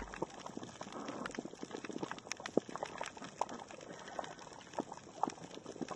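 Underwater crackle of a coral reef: dense, irregular sharp clicks of snapping shrimp, several a second.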